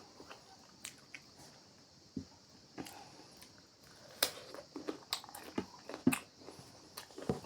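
A person biting and chewing food close to the microphone: irregular crisp crunches and wet chewing clicks, sparse at first, then closer together and louder from about four seconds in.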